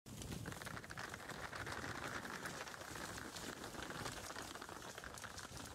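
Hooves of a herd of zebras galloping across a dusty road: a dense, continuous pattering clatter.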